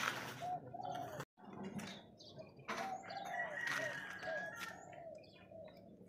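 Birds calling in the background: many short, repeated curved chirps. The sound cuts out completely for a moment about a second in.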